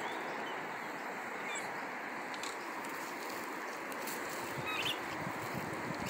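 Steady outdoor background hiss with a few faint, short bird chirps, one about a second and a half in and a couple near the end.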